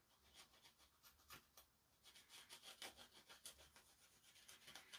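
Faint, irregular scratchy rubbing: a greasy TV remote circuit board being scrubbed clean of sludge, in many short strokes that come more often in the second half.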